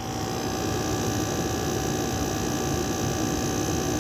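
Keystone window air conditioner running from its outdoor side: a steady hum from the compressor and condenser fan. It steps up in loudness right at the start, then holds steady, and the compressor runs very smooth.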